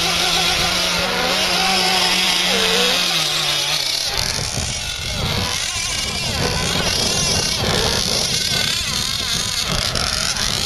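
Radio-controlled model racing boats running, their small engines buzzing high with a pitch that rises and falls. About four seconds in the sound turns rougher, with wind rumbling on the microphone.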